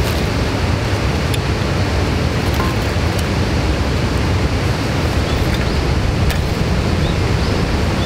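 Steady rushing noise, even and unbroken throughout, with a few faint clicks over it.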